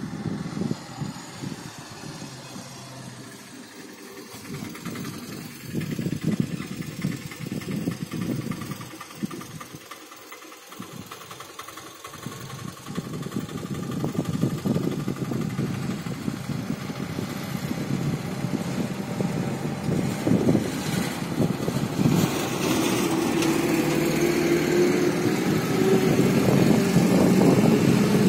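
A motor vehicle's engine running, a low rumble that grows louder through the second half, with a steady hum rising slightly in pitch near the end.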